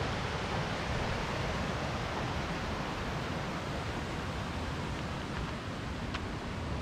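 Steady rushing of a snowmelt mountain creek running over rocks.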